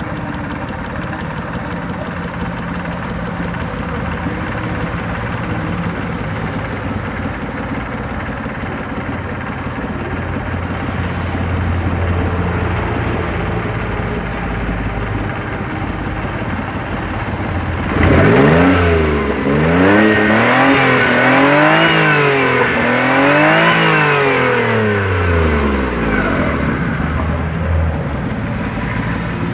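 Suzuki F6A EFi three-cylinder engine idling with the ticking noise that is put down to a fuel injector. About eighteen seconds in it is revved up and let fall back three times in quick succession, then settles back to idle.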